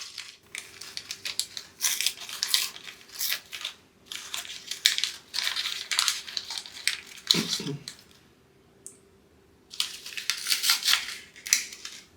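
Plastic packaging crinkling and rustling in irregular bursts as it is handled, with a pause of a couple of seconds about eight seconds in.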